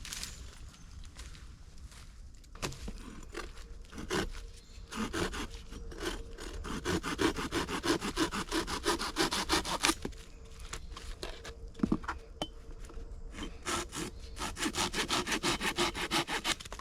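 A hand saw cutting through a dry branch for firewood, in rapid back-and-forth strokes of about four or five a second. The sawing comes in two spells, one starting about five seconds in and another near the end, with a few scattered knocks between them.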